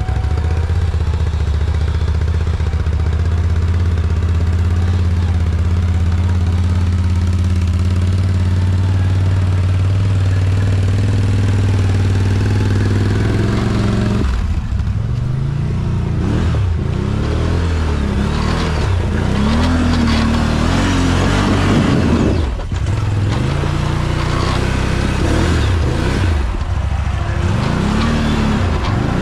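ATV engine running at steady revs for about fourteen seconds. After a sudden change it is revved up and down again and again in quick rises and falls, with a brief dip in between.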